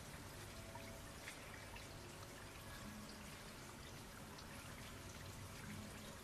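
Rain falling steadily: an even hiss with scattered sharper drops. Faint held notes of soft music sound beneath it.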